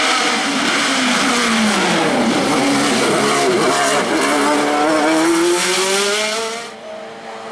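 Open-cockpit racing prototype's engine at hill-climb pace. Its note falls as it slows for a tight bend, then rises steadily as it accelerates out, and drops away sharply near the end as the car goes out of sight.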